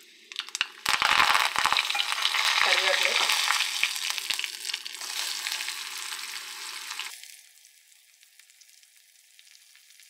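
Curry leaves and chopped onion dropped into hot oil in a metal kadai, sizzling loudly as the tempering for sambar is made, with a spatula clicking against the pan as they are stirred. About seven seconds in the sizzle drops suddenly to a faint hiss.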